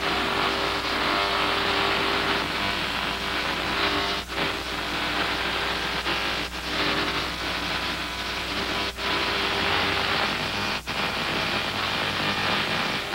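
A 300,000-volt Tesla coil discharging sparks onto a metal thimble on a man's finger: a steady crackling buzz with a faint steady tone underneath, cutting out briefly four times.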